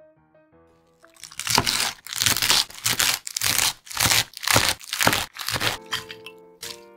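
Kitchen knife chopping through fresh komatsuna stalks on a wooden cutting board, about two to three cuts a second, starting about a second in and stopping near the end. Soft piano music plays under it and comes back as the chopping stops.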